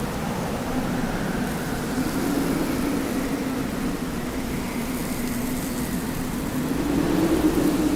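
Desert wind blowing steadily, a rushing noise with a low tone that wavers in pitch and swells louder near the end.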